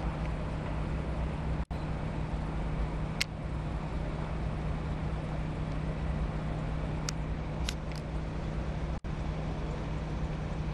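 Steady roar of a large fire consuming a wooden structure, over a steady low hum, with a few sharp pops about three seconds in and again around seven to eight seconds. The sound drops out for an instant twice.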